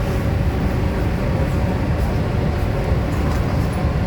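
Steady running rumble of an MTR Tung Chung Line K-Train moving along the track, with faint high ticks over it.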